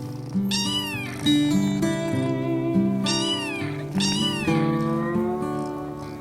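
An animal's high call, heard three times, each one rising and then falling in pitch, over steady background music.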